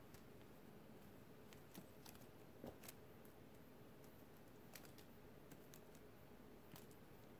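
Near silence: room tone with faint, scattered small clicks and taps.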